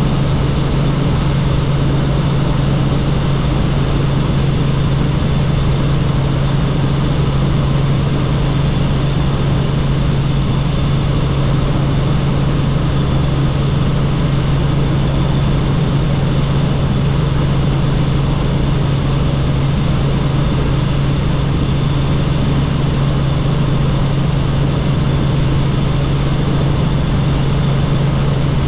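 Helicopter in flight: a loud, steady drone with a constant low hum that holds unchanged throughout.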